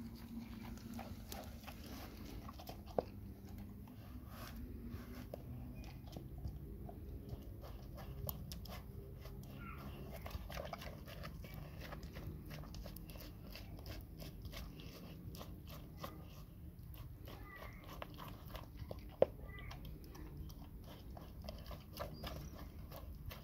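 A Labrador retriever eating a large grilled sandwich: steady, irregular chewing, biting and crunching with many small wet clicks, and two sharper snaps, one about three seconds in and another later on.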